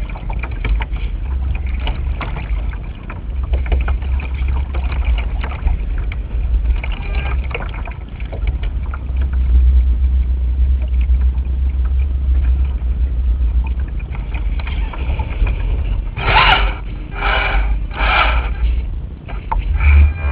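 Gusty wind buffeting the microphone of a camera mounted on a radio-controlled sailing yacht: a heavy rumble that swells and eases, over a steady hiss. Near the end come three short pitched sounds, about a second apart.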